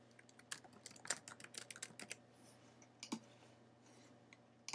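Faint typing on a computer keyboard: a quick run of keystrokes, then a few single key presses near the three-second mark and near the end.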